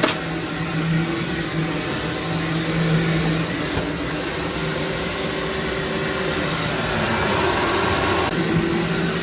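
Vacuum cleaner running steadily with a constant motor hum, drawing dry soil out of a heavily soiled carpet.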